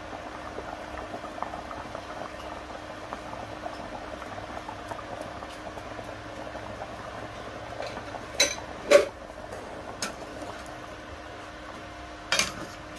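A pot of soup simmering with a steady bubbling hiss, and a metal spoon clinking against the pot several times about eight to ten seconds in and once more near the end.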